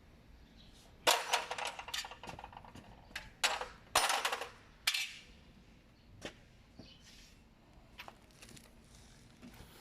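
Metal gearbox parts and tools clinking and clattering as they are handled: a few loud clatters in the first half, then scattered light clicks.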